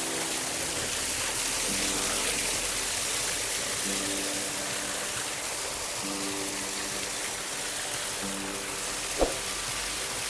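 Small waterfall cascading over rock, a steady rushing hiss of water, with soft sustained background music notes underneath. A single short knock sounds about nine seconds in.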